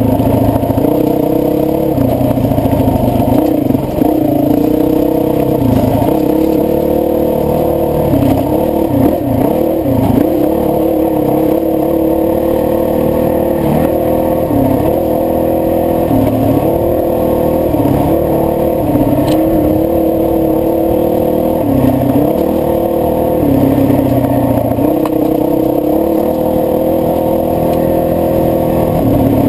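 Honda CRF450X dirt bike's single-cylinder four-stroke engine running under way on a trail, its revs dropping and rising again every second or two with throttle and gear changes. One brief sharp click about two-thirds of the way through.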